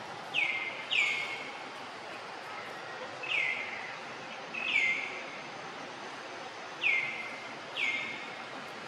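A bird calling again and again: six short notes, each sliding down in pitch, spaced unevenly over a steady background hiss.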